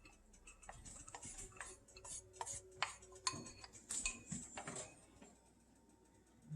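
Cheez-It crackers being smashed up for a breading: a run of irregular small clicks and taps that stops about five seconds in.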